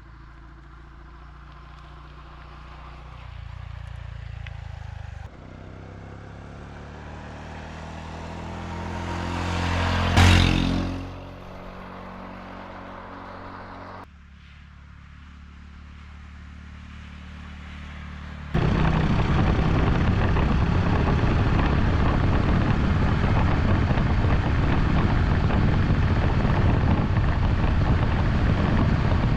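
Honda Super Cub 110's small single-cylinder four-stroke engine running as the motorcycle is ridden, in several short clips. About ten seconds in, a pass-by swells to a loud peak and quickly falls away. From about eighteen seconds on, a louder steady engine note mixed with wind rush.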